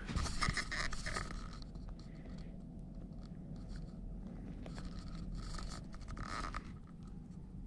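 Scratchy rustling noises in a few short bursts, near the start and again about five to six seconds in, over a low steady hum.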